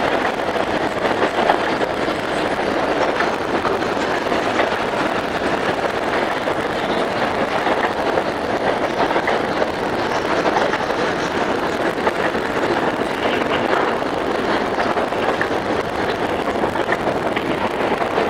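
Freight cars of a metre-gauge freight train rolling past, a steady noise of steel wheels on the rails with scattered clicks.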